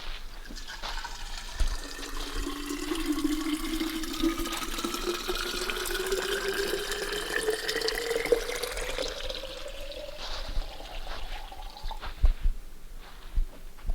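Water pouring into a container, the pitch rising steadily for about eight seconds as it fills. A few sharp knocks near the end.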